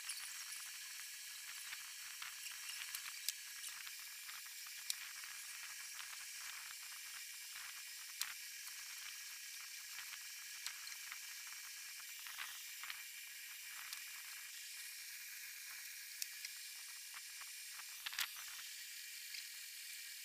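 Faint scattered clicks and rustles of flat plastic weaving tape being pulled and tucked through the woven seat of a metal-framed charpai, over a steady high hiss.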